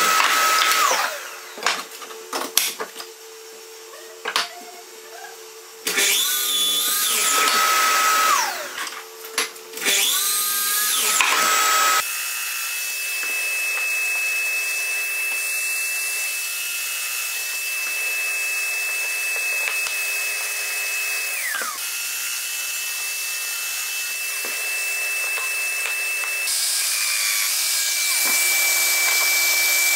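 Mitre saw with dust extraction cutting beech slats: three short runs, each motor whining up to speed and winding down. Then a Festool Domino joiner with its dust extractor runs with a steady whine. It winds down and restarts about two-thirds of the way through, then grows louder as it cuts mortises in bent beech pieces.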